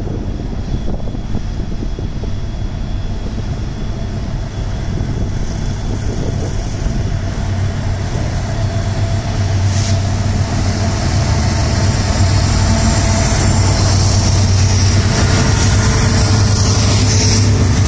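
CN freight train's diesel locomotives approaching and passing close by, their engines' low drone growing steadily louder. A higher rushing noise from the wheels on the rails builds near the end as the units go by.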